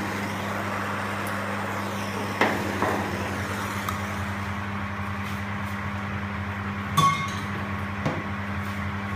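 A steady low hum, with a few sharp knocks and clinks of tools against metal; the clink about seven seconds in rings briefly.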